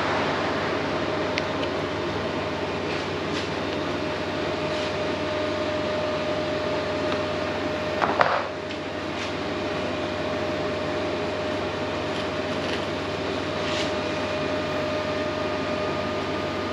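Steady machine drone of workshop air-moving equipment, with a faint steady tone in it. A short clatter of tool on metal comes about eight seconds in.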